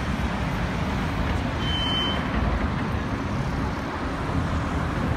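City street traffic: cars driving past with a steady low rumble of engines and tyres.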